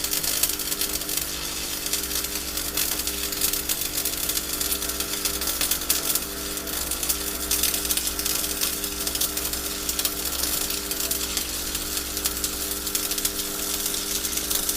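Stick (MMA) arc welding: the electrode's arc crackling steadily as a straight bead is laid, with a steady hum underneath.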